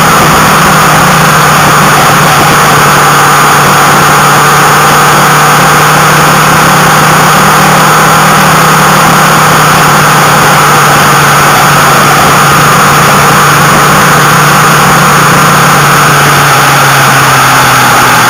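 Motorcycle engine running steadily at cruising speed, under a loud constant rush of wind and road noise; the engine note drops slightly near the end.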